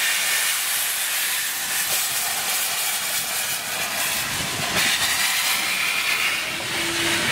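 Steady loud hiss of steam blowing from the open cylinder cocks of the John Molson, a 1971 replica of an 1848 2-2-2 steam locomotive. A lower rumble joins the hiss about five seconds in.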